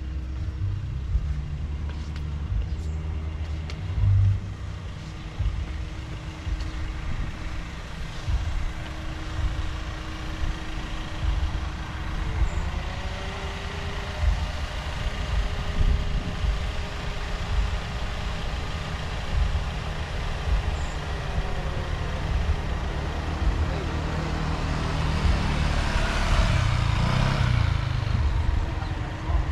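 Motor vehicle engine running, a steady hum over a low rumble, its pitch rising briefly about halfway through; a louder rushing swell comes near the end.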